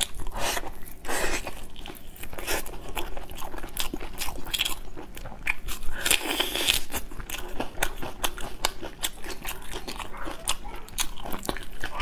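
Close-miked eating: biting and chewing braised meat, with many irregular sharp wet clicks and smacks of the mouth.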